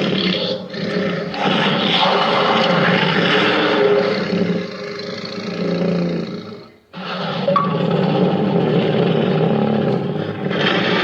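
Giant-monster (kaiju) roar sound effects: one long, rough roar that cuts off suddenly about seven seconds in, then a second roar that follows at once.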